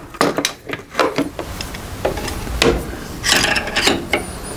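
A hand clamp being fitted and ratcheted tight onto a composite crashbox: a quick run of clicks in the first second and a half, then a rasping scrape a little past three seconds in.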